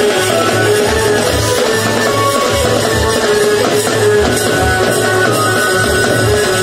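Music with a plucked-string melody over a pulsing bass.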